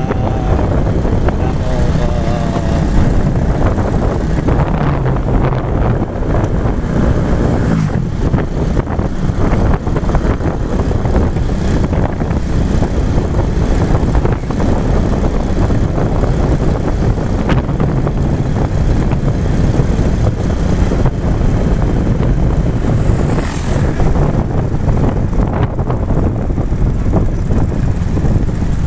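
Steady rumble of a motorbike ride: wind buffeting the microphone over the engine and tyre noise.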